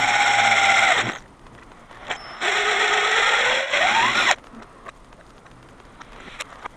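A small power tool motor, likely a cordless drill or screwdriver, runs in two short bursts: the first about a second long, dropping slightly in pitch as it stops, the second about two seconds long with its whine rising as it speeds up. It is followed by quiet clicks of parts being handled.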